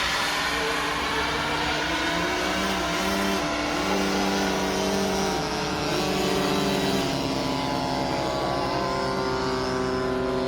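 Small model jet turbine engine of about 4.5 kg thrust running with a steady whine. Its pitch steps up and down a few times as the throttle is changed.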